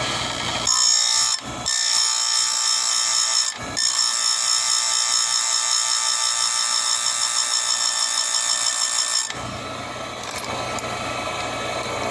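Electric saw-chain grinder's wheel grinding a cutter tooth on a Hipa chain, a high rasping whine, broken twice briefly as the wheel lifts off the tooth. About nine seconds in the grinding stops and the grinder motor keeps spinning with a quieter whine.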